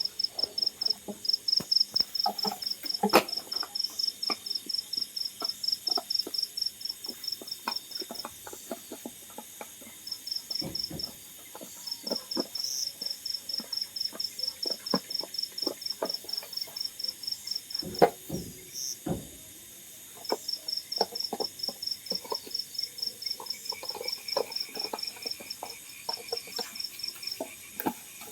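An insect chirping in a high, even pulse, about four to five chirps a second, pausing a few times, over scattered soft clicks and knocks.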